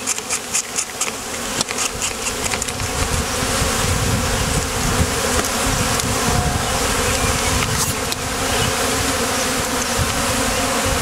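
A swarm of honeybees buzzing loudly and steadily as they are shaken out of their wooden swarm box and crowd around a hive entrance. A few light clicks and knocks come in the first second or two.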